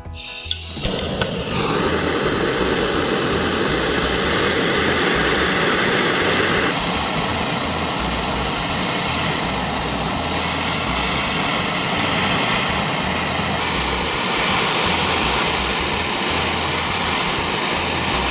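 A small motor running steadily with a loud rushing noise, its tone shifting twice.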